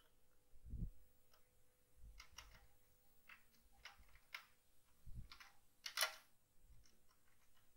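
Faint scattered ticks and clicks of a screwdriver turning the screw terminals of a 24 V DC switch-mode power supply to clamp multimeter probe leads, with a few soft handling thumps; the sharpest click comes about six seconds in.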